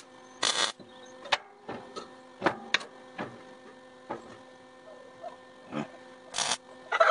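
MIG welder tack-welding expanded metal onto a steel fire-basket frame: short bursts of arc welding about half a second in and twice near the end. In between, the metal pieces clink and tap as they are set in place.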